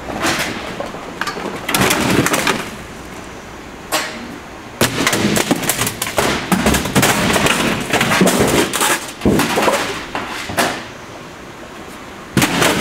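Industrial shredder crunching debris in its hopper: irregular bursts of loud cracking and snapping, with a couple of quieter spells of the machine running between them.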